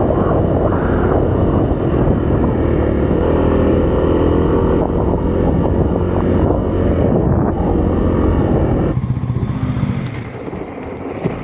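Kawasaki KLX300's single-cylinder four-stroke engine running under load on a dirt trail, with wind buffeting the external action-cam microphone. About nine seconds in the engine drops off as the bike slows.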